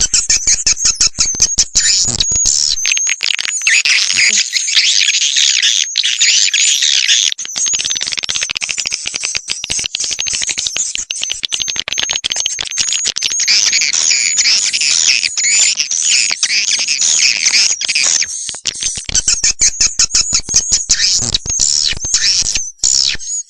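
Swiftlet call recording: dense, continuous twittering and chirping from many swiftlets, with rapid clicking running through it, of the kind played from swiftlet houses to lure wild swiftlets in.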